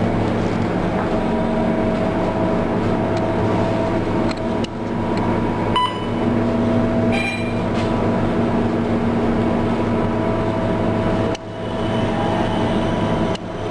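Singapore MRT train running, a steady rumble with a steady electric hum running under it.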